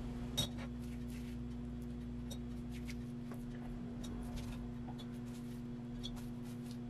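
Bean sprouts being plucked from a damp paper towel and dropped into a glass bowl by hand: faint rustles and soft ticks, with one sharper click about half a second in, over a steady low hum.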